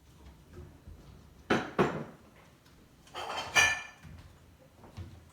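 Two sharp knocks in quick succession, then a brief rattling clatter of hard objects with a slight ringing, followed by a few faint knocks.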